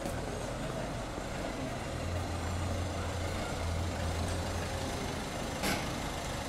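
Busy city street ambience: a steady wash of traffic noise, with a low vehicle engine rumble starting about two seconds in and fading after a few seconds, and a single sharp knock near the end.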